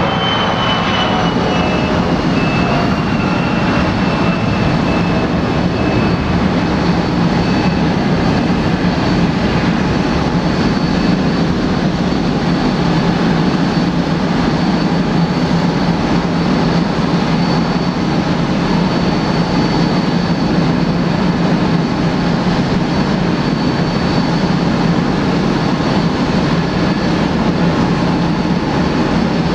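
Boeing 787-8's Rolls-Royce Trent 1000 jet engines running with a steady rush and a high whine. Several whine tones fall slowly in pitch over the first several seconds, then the sound holds steady.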